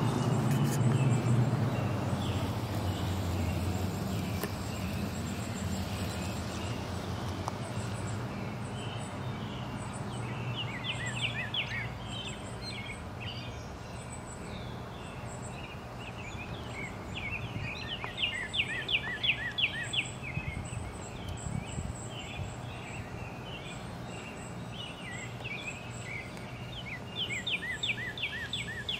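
Songbirds singing, with one bird giving a fast series of repeated notes three times, over a steady low hum.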